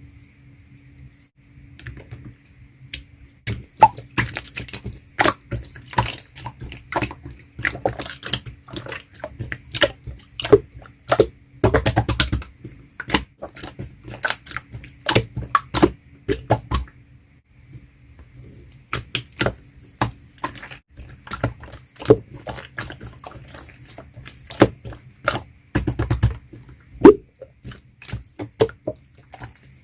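Slime being worked by hand, making irregular sticky pops and clicks, with denser crackling runs about twelve and twenty-six seconds in.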